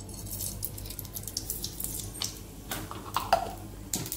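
Mustard seeds spluttering in hot groundnut oil in a kadai during tempering: a fast, irregular crackle of sharp little pops.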